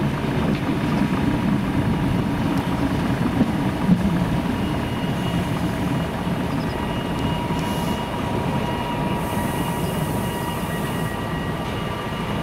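Train running along the line: a steady low rumble with faint high whines held underneath it.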